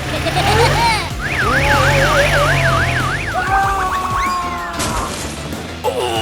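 Police siren sound effect: a fast up-and-down yelp, about three and a half sweeps a second for about two seconds, over background music and a steady low engine rumble.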